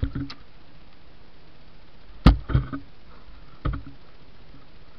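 Handling noise: several short knocks and scuffs as a hand knocks against the camera, the loudest a little over two seconds in with two smaller ones right after it, over a steady hiss.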